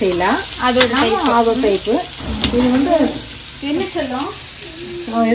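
Sliced onions and garlic sizzling in oil in a stainless steel pan as they are stirred, with a few sharp clinks of the stirring utensil against the pan, under a person talking.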